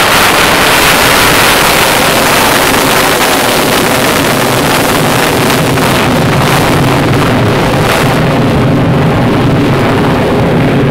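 Military fighter jet in a demonstration pass, its engine giving a loud, continuous jet roar; the hiss thins and a low rumble stays as the jet pulls away near the end.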